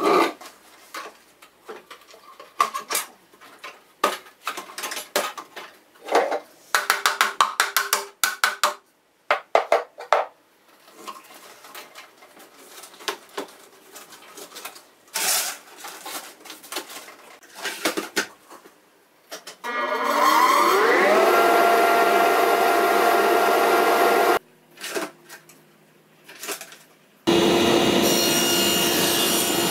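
White PVC pipe fittings and a hose being handled and pushed together, a long run of clicks and knocks. About twenty seconds in, a motor starts with a rising whine, runs steadily for a few seconds and stops. Near the end the table saw runs with a steady hum.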